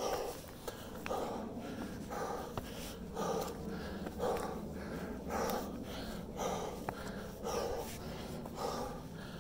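A person breathing hard and rhythmically, about one loud breath a second, from the exertion of climbing a steep rocky trail.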